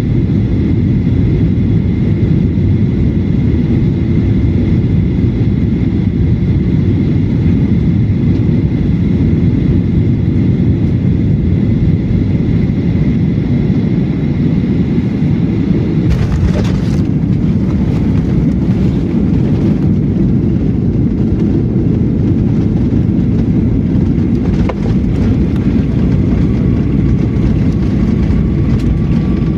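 Airliner cabin during landing: a loud, steady rumble of engines and airflow with a faint whine. About sixteen seconds in, the wheels strike the runway hard, and the cabin then rattles as the aircraft rolls along the runway.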